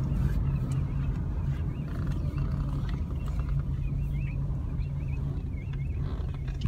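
Steady low hum of a car engine idling, with birds calling in short repeated chirps over it from about halfway through.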